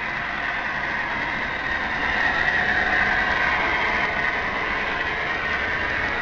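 MTH Premier O-gauge model GP38-2 diesel locomotive running along the track: a steady diesel engine sound from its onboard sound system, together with the rolling noise of the train. It grows a little louder about two seconds in.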